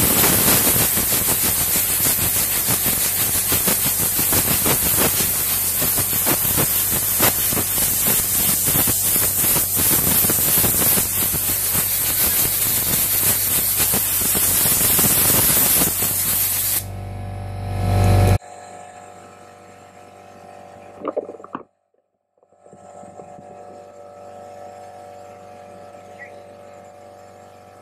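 Compressed air blowing in a long, loud, steady hiss for about seventeen seconds, cooling a hot phone screen fresh out of a pressure chamber. It stops abruptly, leaving the quieter steady hum of the shop air compressor still running.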